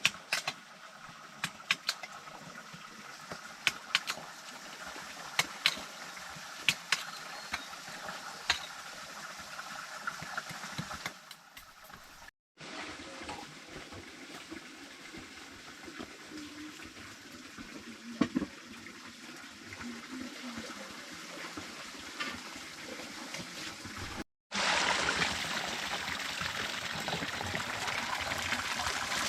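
Running water, a steady rush, with about ten sharp clicks or knocks over the first part; the sound cuts twice, and after the second cut the rush of water is louder.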